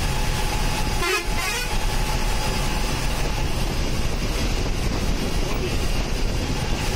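Steady engine and road noise heard from inside a moving bus, with a brief wavering sound about a second in.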